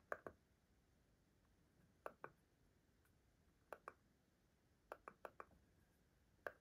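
Buttons of an IKEA STYRBAR smart remote clicking as they are pressed. The clicks come mostly in pairs about every two seconds, with four quick clicks about five seconds in.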